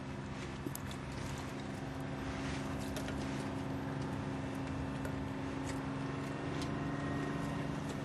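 A landing craft's engine running with a steady low drone through the boat, with a few short sharp ticks over it.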